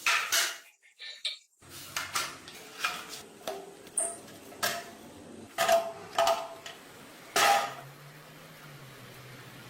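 Metal parts and tools clanking and tapping, about a dozen irregular strikes, some ringing briefly, the loudest about two-thirds of the way in; after that a faint steady low hum.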